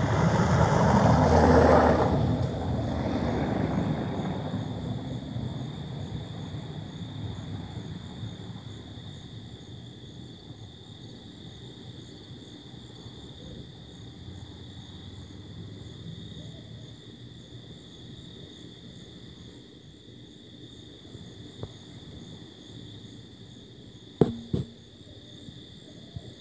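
A passing vehicle rumbles loudly about two seconds in, then fades away over several seconds. Steady high chirring of night insects carries on underneath, and a couple of sharp knocks come near the end.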